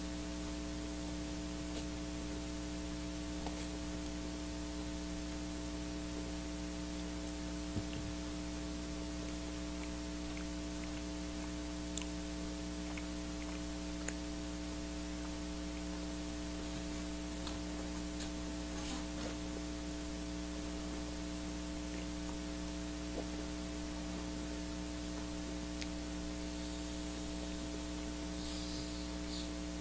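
Steady electrical mains hum over a constant hiss, with a few faint, scattered clicks.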